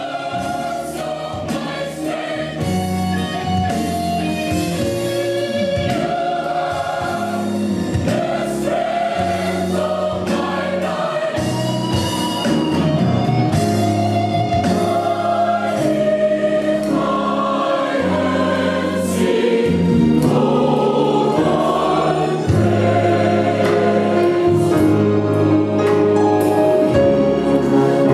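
Mixed gospel choir singing with a live band of drum kit and bass guitar, the music building gradually louder.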